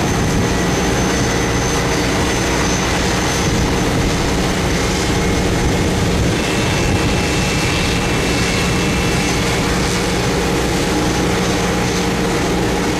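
Boeing 737-800's CFM56 jet engines running as the airliner rolls down the runway, a steady rumble and hiss heard from a distance.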